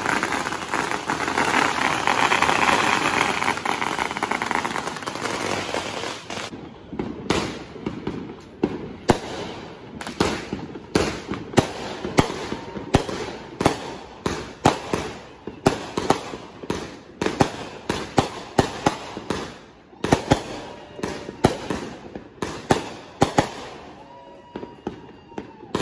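Consumer fireworks going off close by: a loud steady hiss for about the first six seconds, then a multi-shot cake firing a quick string of sharp bangs, about two to three a second, that thins out near the end.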